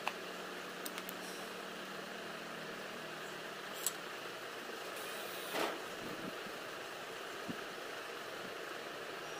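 Steady background hiss of room noise, with a few faint clicks and a short rustle about five and a half seconds in.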